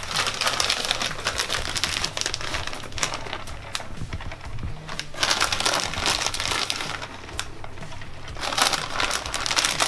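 Plastic bag of shredded cheese crinkling as it is pulled open and shaken out, in three bouts of rustling.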